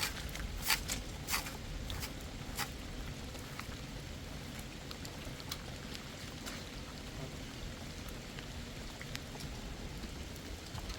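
Steady rain falling, with a low rumble of wind and a few sharp clicks in the first three seconds.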